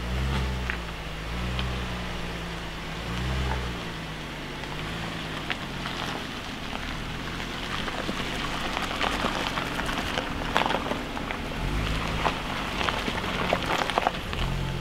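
Range Rover Velar's engine rising and falling in pitch as the throttle is worked over rough ground, with tyres crunching over loose stones and splashing through wet gravel.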